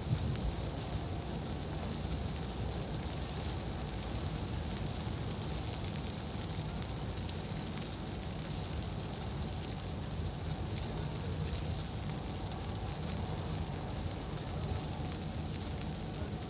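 Steady road noise inside a moving car in the rain: a low rumble of the car and its tyres on the wet road, with scattered light ticks of raindrops on the windscreen.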